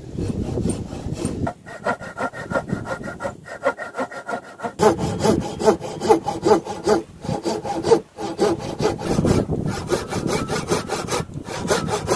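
Hand saws cutting through a wooden post in quick back-and-forth strokes, about three a second at the fastest. A thin-bladed coping saw is heard first, then a toothed hand saw. The rasping texture changes abruptly a few times.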